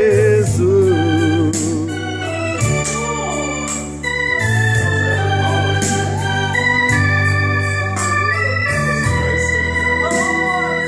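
Organ music: sustained chords held over a low bass line that changes every second or two.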